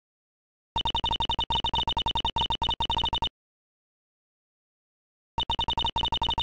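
Visual-novel dialogue text blips: a rapid string of short, identical electronic beeps, about ten a second, sounding as a line of dialogue types out letter by letter. A run of about two and a half seconds stops, and after about two seconds of dead silence a second run starts near the end.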